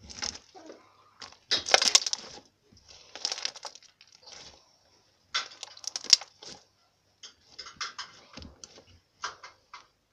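Hands squeezing and kneading a lump of slime, in about six bursts of squishing and clicking with short pauses between them.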